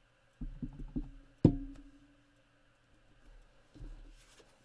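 Stamping on a craft desk: a stamp tapped quickly several times onto an ink pad, then one sharp knock as it is pressed down onto card, with a short ring from the desk after it. A few fainter knocks follow near the end.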